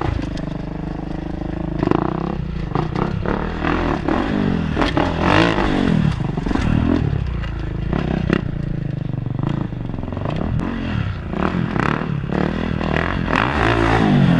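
Kawasaki KX450 dirt bike's single-cylinder four-stroke engine revving up and down over and over as it is ridden through wheelies, with scattered clattering knocks.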